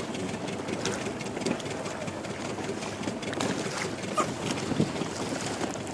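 A small motorboat's engine running steadily at low speed.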